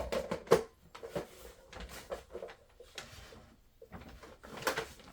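Gift packaging being handled and opened: scattered rustles, clicks and light knocks, the sharpest about half a second in.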